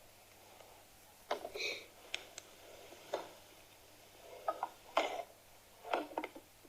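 Scattered short, quiet noises from a person asleep in bed: a handful of clicks and brief breathy or rustling sounds at irregular intervals, with no steady snoring rhythm.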